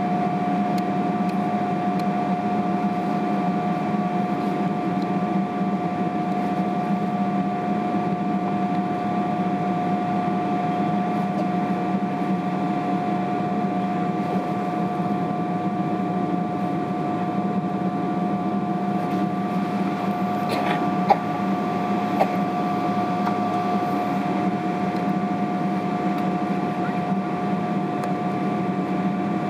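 Steady cabin noise inside a Boeing 777-300ER on the ground: a constant low hum and air rush with a steady high whine, with the engines idling. A couple of faint clicks come about two-thirds of the way through.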